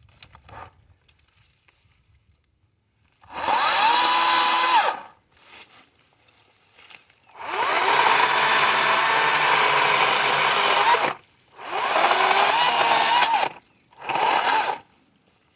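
Kobalt 40V Max battery-powered electric chainsaw pulsed on and off four times: each burst spins up with a rising whine, runs at a steady pitch, then winds down. The longest burst, about four seconds, starts about halfway in.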